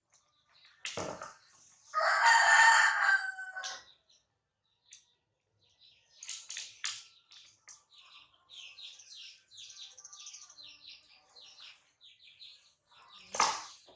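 A rooster crows once, starting about two seconds in. A long run of quick, high chirps follows, with a sharp knock at about a second in and another near the end.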